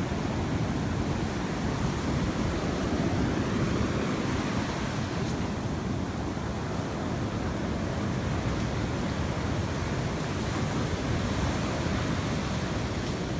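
Sea surf washing steadily onto the beach.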